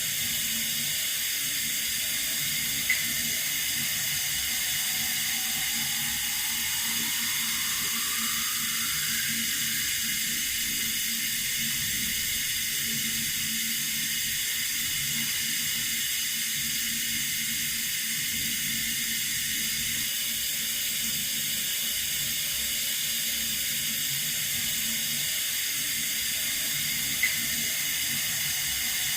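Running water from a tap, a steady even hiss, with two faint ticks, one about three seconds in and one near the end.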